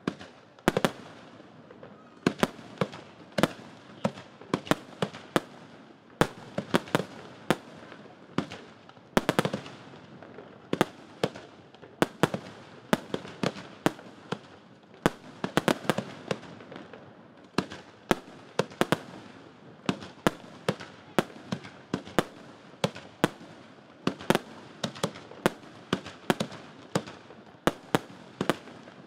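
Fireworks display: aerial shells bursting in a continuous, irregular run of sharp bangs, often several in quick succession, with a steady rumble and hiss between them.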